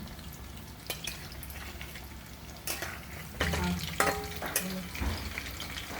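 Batter-coated chicken pieces deep-frying in hot oil in a kadhai, giving a steady sizzle. A few sharp clicks of a utensil against the pan come as the pieces are turned.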